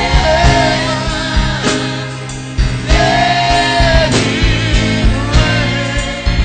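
Live gospel praise music: a singer's long, sliding vocal lines over a band with a steady drum beat.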